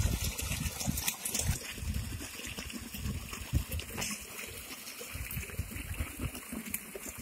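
Borewell pump water gushing from an outlet pipe and splashing into an irrigation channel. It grows fainter after the first second or two.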